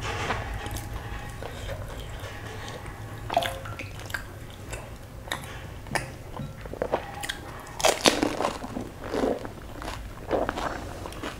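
A pani puri being bitten and chewed: the crisp fried shell crunches in irregular bursts. The loudest crunches come around eight seconds in.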